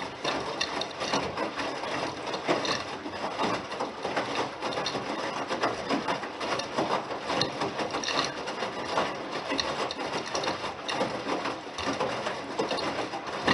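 Bosch Serie 6 front-loading washing machine's drum turning, with the laundry tumbling and rattling inside; the clatter stops abruptly near the end as the drum halts.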